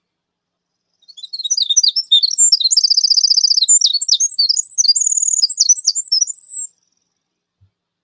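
Recorded song of a wren of the winter wren group: one long, rapid, high cascade of quick notes and fast trills, starting about a second in and lasting nearly six seconds.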